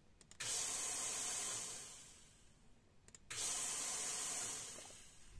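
Homemade mist-free coolant spray system on a milling machine hissing in two bursts, each opening with a click and then tailing off over about a second, as the coolant is switched on from the control.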